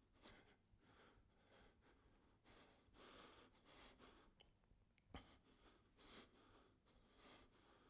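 Near silence, with a man's faint breathing, several soft breaths in a row, and one small click about five seconds in.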